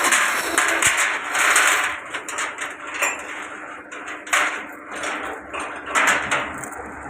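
Plastic scrap grinder crushing plastic: irregular clattering and cracking over a steady machine hum, loudest in the first two seconds.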